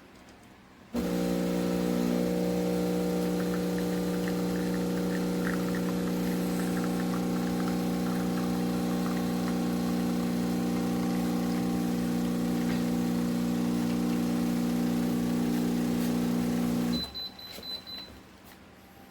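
ICUIRE 20-bar espresso machine's pump running with a steady, loud hum for about 16 s, then stopping, followed by a few light clicks and a short high beep.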